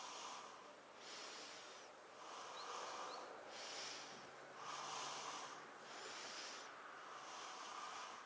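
Faint, steady nasal breathing close to the microphone, one hissing breath in or out about every second.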